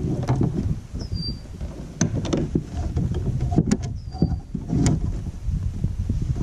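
Wind buffeting an action-camera microphone on a kayak, with scattered knocks and clicks from gear being handled.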